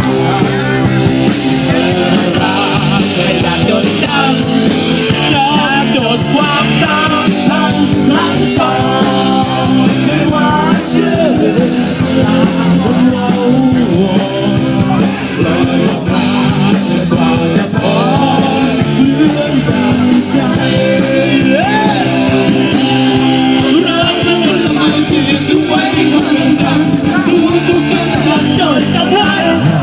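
Live band playing rock music with a singer's voice over it.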